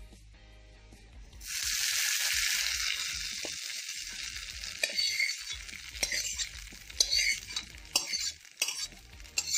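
Hot tempering oil with mustard seeds, dried red chillies and curry leaves sizzling as it is tipped from a kadai onto wet coconut chutney; the sizzle starts suddenly about a second and a half in and slowly dies down. A metal spatula then scrapes the last of it out of the kadai, with a string of short scrapes and clinks.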